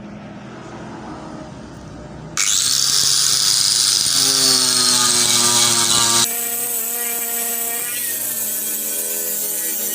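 An electric power tool, most likely a grinder, working stainless steel. A low running sound turns suddenly into a loud, hissing grind with a high whine about two and a half seconds in. It drops to a steadier, lower hum with wavering tones about six seconds in.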